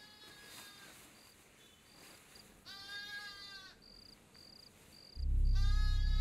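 Film soundtrack for a night scene: crickets chirp in a steady on-off pattern under three long, high wavering notes. About five seconds in, a loud low bass drone of background music comes in suddenly.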